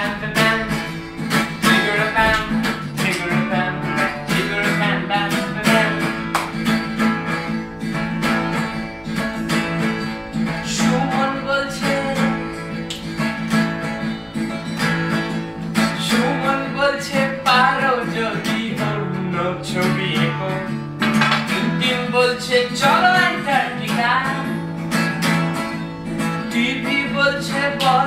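Acoustic guitar strummed steadily, with no sung words, in an instrumental stretch between sung verses of a song.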